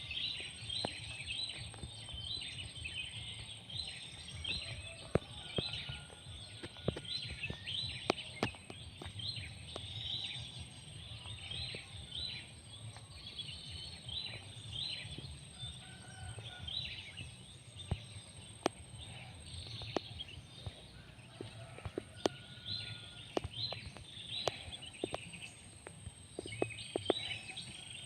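Many birds calling in a wetland chorus of short, rapid chirps, with scattered sharp clicks.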